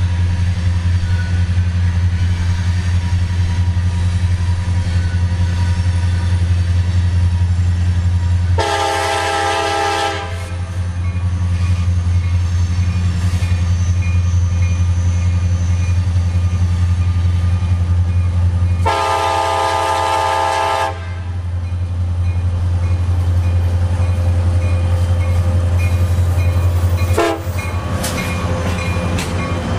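A CSX SD70MAC locomotive's Nathan K5LA air horn sounds two long blasts about ten seconds apart, over the loud steady drone of diesel locomotives working as the train approaches. Near the end the locomotives pass close by.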